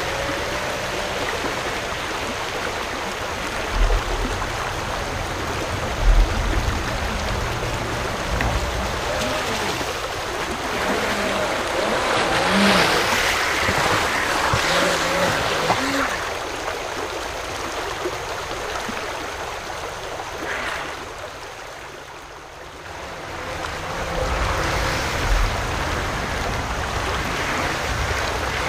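Water rushing steadily over a shallow, rocky creek riffle, with a small RC jet boat's electric motor and jet drive running through the rapids, louder as it passes close about halfway through. Two short low thumps a few seconds in.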